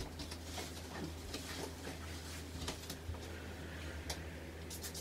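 Light clicks and taps of skincare bottles and caps being handled at a dresser, over a steady low hum, with a quick run of small ticks near the end.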